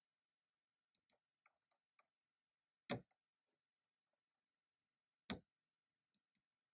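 Scattered, unhurried keystrokes on a computer keyboard: a few light key clicks, then two much louder key presses about two and a half seconds apart, and two faint clicks near the end.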